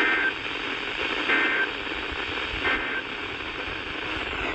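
NOAA Weather Radio's SAME digital data tones: three short, buzzy bursts about 1.3 s apart over radio static. Their shortness marks them as the end-of-message code that closes an alert broadcast.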